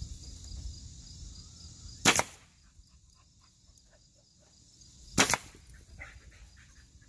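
Nail gun firing twice, about three seconds apart, driving nails into the coop's wooden framing: each shot a sharp crack with a short ring after it.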